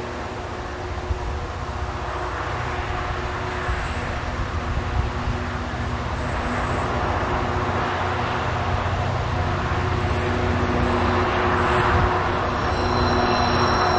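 Two Queensland Rail diesel locomotives working hard at low speed at the head of a heavy loaded coal train climbing a grade, their engines running with a steady drone that grows louder as they approach. Faint high-pitched tones come in near the end, alongside the sand being laid and wheel creep under load.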